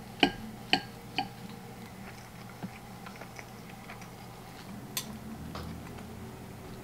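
Metal knife and fork clinking against a ceramic plate, three ringing clinks in quick succession, then a single sharper click about five seconds in, over a low steady hum.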